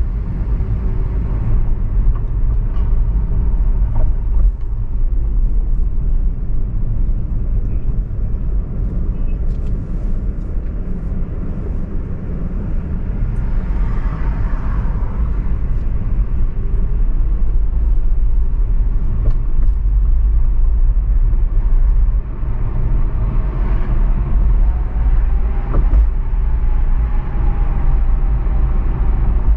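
Car driving through city traffic: a steady low rumble of engine and road noise, with faint passing traffic sounds over it.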